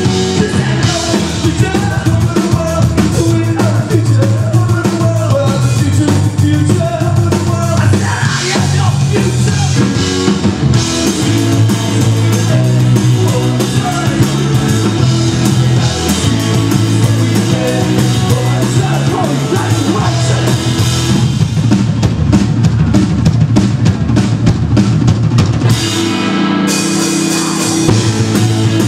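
Live rock band playing loud: a full drum kit with a steady bass drum, bass guitar and electric guitars, heard from the audience in a club.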